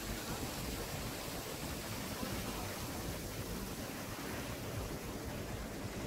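Steady rushing noise of wind and light surf on the shore, even throughout with no distinct events.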